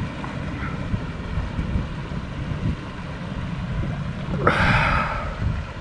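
Wind buffeting the microphone in a steady low rumble, with one brief louder hissing sound about four and a half seconds in.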